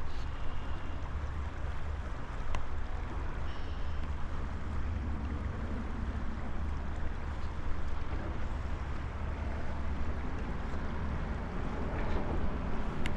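Steady rush of a flowing river with low wind rumble on the microphone, and a few faint clicks.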